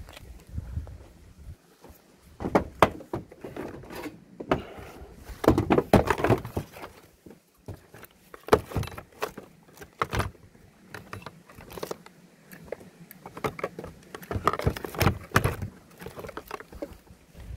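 A corded hammer drill and its cord being packed into a hard plastic carry case: irregular knocks, clatter and rattles as the drill body, cord and handle bump against the case.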